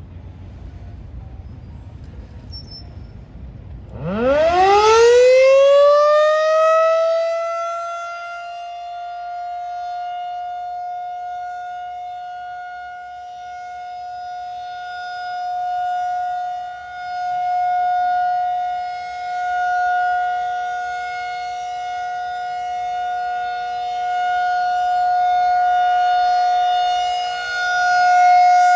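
Federal Signal 2001 outdoor tornado warning siren sounding its scheduled test. About four seconds in it winds up, its pitch rising quickly to a high, steady wail. It then holds that tone, swelling and fading in loudness as the rotating head sweeps around.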